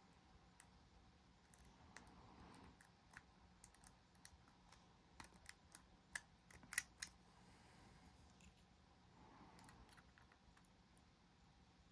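Faint scattered metallic clicks and ticks of a pick working the pins of an HB dimple lock held under a tension wrench. The clicks come thickest in the middle, with the loudest a little before seven seconds in.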